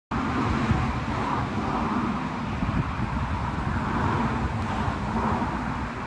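Wind buffeting the phone's microphone as a low, uneven rumble, with a rushing hiss that swells and fades every second or two.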